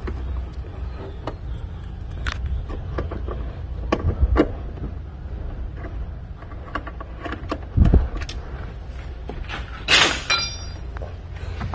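Hand tool and bolts clicking and knocking as fasteners along the engine-bay cowl are undone, over a low steady rumble, with a louder metallic rattle about ten seconds in.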